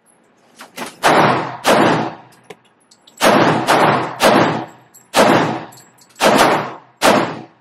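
AR-15 pistol-caliber carbine in .45 ACP, fed from a 1911 magazine, fired shot after shot: about eight sharp gunshots at uneven spacing, each with a short echo off the range walls.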